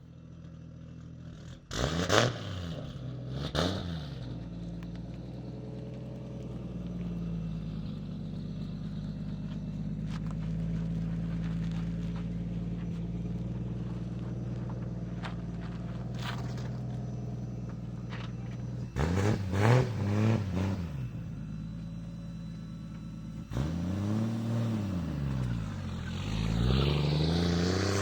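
Toyota JZ-series straight-six engine in a Lexus IS300 being revved. Two short blips about two and four seconds in, then it runs steadily with its pitch slowly climbing. A burst of revs comes around twenty seconds in, and from about twenty-four seconds on it revs up and down over and over, getting louder near the end.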